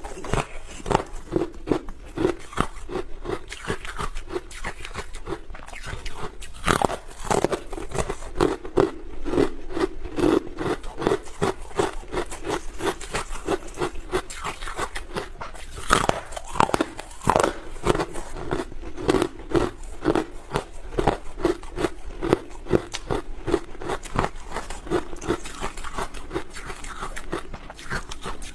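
A person biting and chewing hard carbonated ice close to the microphone: a steady run of sharp crunches, with a couple of louder bites about seven and sixteen seconds in.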